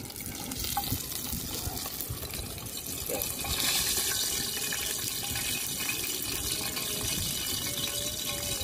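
Hot cooking oil sizzling in a frying pan as fried tilapia are lifted out of it with a spatula. The sizzle grows louder about three and a half seconds in.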